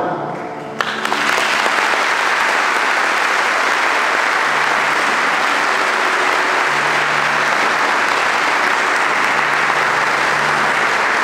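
Congregation applauding, steady and continuous, breaking out about a second in.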